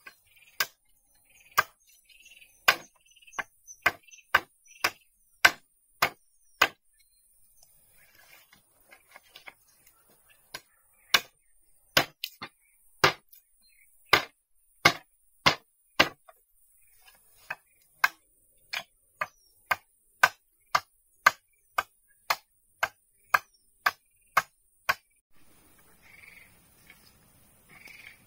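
Wood being chopped, sharp blows falling about two a second. About ten strokes come first, then a pause of a few seconds, then a longer run of about two dozen strokes that stops a few seconds before the end.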